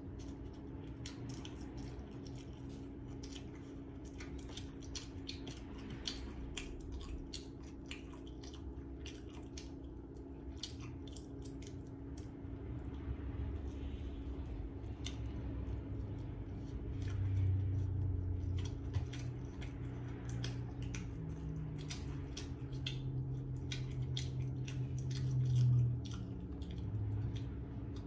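Close-up chewing and biting of a soft kimchi pork bun, with many small wet mouth clicks, over a steady low background hum. A few low, held hums come in the second half, the loudest shortly before the end.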